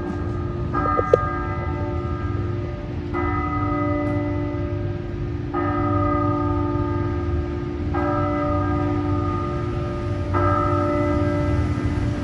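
Background music of sustained, bell-like chords over a steady low note, with a new chord about every two and a half seconds.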